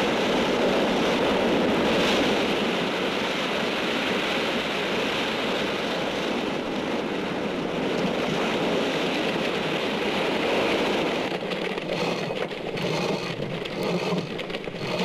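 Steady rushing noise of wind and sea, turning more uneven and fluttering in the last few seconds.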